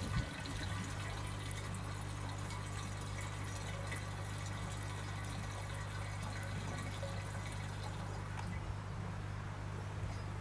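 Liquid running from a hose into the filler opening of a 1937 Petter M type stationary engine, filling its tank, over a steady low hum.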